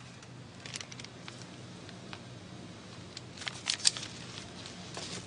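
Brief rustles and sharp clicks of cash and belongings being handled, a cluster of the sharpest clicks a little before four seconds in, over a steady low hum.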